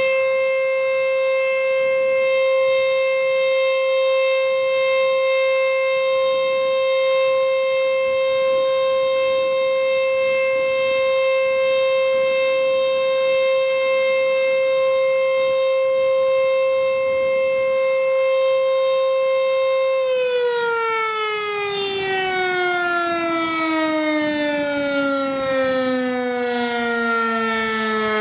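ACA Screamer outdoor warning siren sounding a steady, loud tone. About twenty seconds in, its pitch starts to fall steadily as the siren winds down at the end of its three-minute run.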